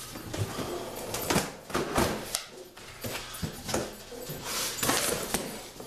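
A large cardboard carton being opened by hand: its flaps are pulled up and rustle and scrape, with a series of irregular sharp knocks against the box.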